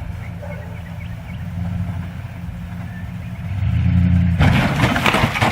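A motor vehicle's engine running steadily, revving up about three and a half seconds in, followed by a loud crunching noise from about four and a half seconds.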